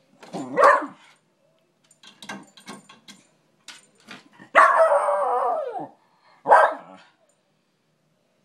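West Highland White Terrier barking and whining while trying to reach its squeaky toy: a short bark about half a second in, a long whine falling in pitch around the middle, and another short bark soon after.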